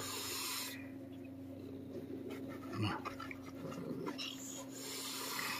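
A fearful feral cat hissing at a gloved hand, one short hiss at the start and another near the end.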